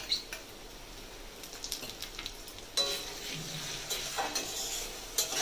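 Sliced onions and garlic paste sizzling in oil in an aluminium kadai while they are stirred, with a spatula scraping and knocking against the pan every so often.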